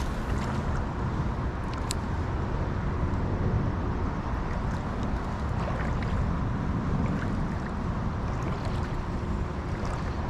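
Steady low rumble of wind on the microphone over flowing creek water, with a few faint ticks.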